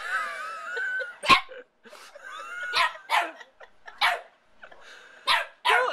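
Small white puppy barking: about six short, sharp barks at uneven intervals, opened by a longer wavering pitched sound.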